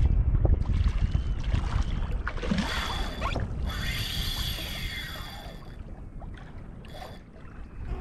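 Wind buffeting the microphone with a low rumble, heaviest at first and easing off, over water moving around a kayak. From about two and a half to five and a half seconds in, a rushing, hissy burst rises over it.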